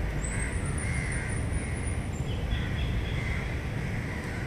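Birds calling repeatedly over a steady low city rumble, with a thin high whistle near the start.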